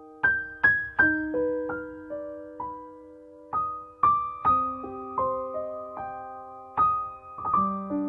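Background solo piano music: a slow, gentle melody of single notes and light chords, each struck and left to ring and fade.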